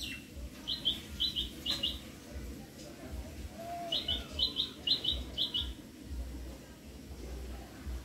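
A small bird calling with short, high chirps, each one doubled, in two quick runs: three about a second in and four about four seconds in.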